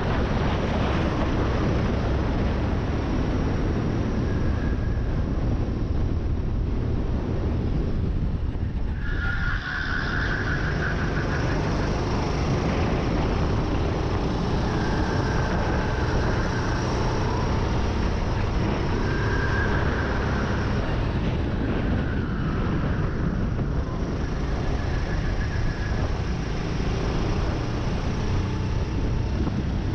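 Sodikart racing kart's engine running hard at speed, recorded onboard, with a brief drop in the sound about nine seconds in.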